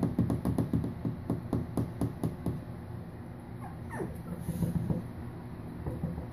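A puppy's claws clicking on a bare hardwood floor as it trots along, about four or five clicks a second, thinning out after two and a half seconds. About four seconds in, a short, falling whimper from the puppy.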